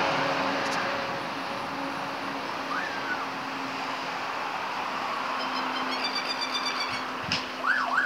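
Australian magpie calling: a short call about three seconds in, then a rapid run of high chirps and quick up-and-down sweeps near the end, siren-like mimicry of a car alarm. Steady traffic and wind noise runs underneath.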